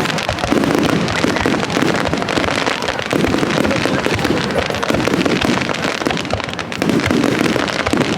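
Aerial fireworks bursting close overhead in a dense barrage: a continuous crackle of many rapid small bangs over a steady rumbling wash, with no pause.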